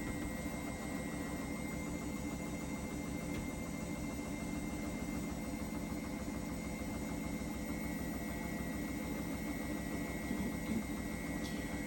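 Hotpoint washing machine running mid-cycle: a steady motor hum with a fast, even pulse underneath and a thin steady whine.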